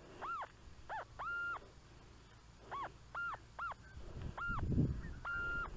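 Minelab CTX-3030 metal detector giving about eight target tones as the coil sweeps back and forth over a buried target: short beeps that rise and fall in pitch, a couple held steady at the top. A low rustle of handling or digging comes in near the end.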